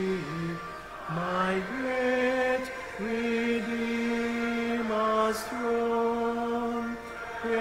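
A man singing a hymn slowly, solo, holding each note long and stepping from note to note.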